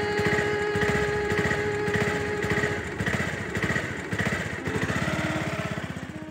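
Hero XPulse motorcycle's single-cylinder engine running steadily in a fast, even beat, fading out at the very end.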